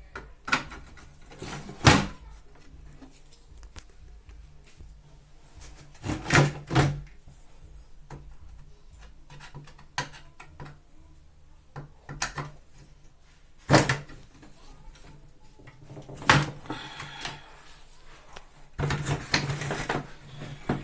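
Scattered sharp clicks and knocks of hand tools and plastic parts being handled during work on a twin-tub washing machine's timer, with a denser run of rattling knocks near the end.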